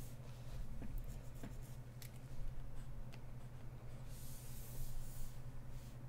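Stylus strokes scratching across a drawing tablet's surface in short and longer passes, with a few light clicks, over a steady low hum.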